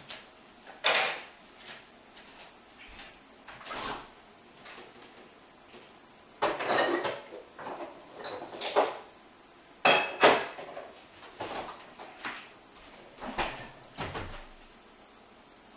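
Scattered clinks and clatters of hard objects at irregular intervals, a few ringing briefly, with a longer scraping clatter about six and a half seconds in.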